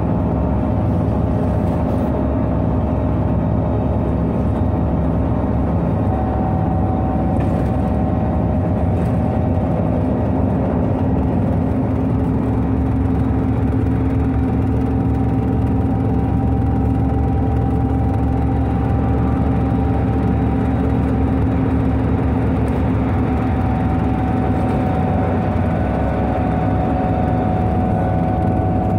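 IVECO Cursor 8 six-cylinder diesel engine of an Irisbus Citelis 18 articulated bus running steadily, with a faint whine that drifts slowly up and down in pitch.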